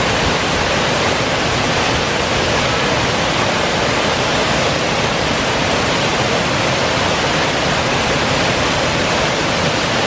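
Wide tiered waterfall pouring over rock ledges into a pool: a loud, steady rush of falling water.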